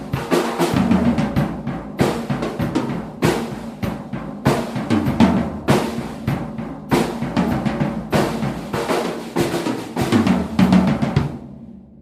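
PDP Concept Maple seven-piece acoustic drum kit on its stock heads, played as a driving beat with bass drum, snare and fills. The playing stops near the end and the last hits ring out and fade.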